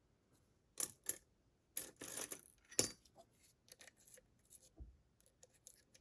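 Lock pick and tension wrench working the pins of a seven-pin DORMA DC500 pin-tumbler lock cylinder: irregular sharp metallic clicks and light scrapes, the loudest in the first three seconds, then smaller ticks.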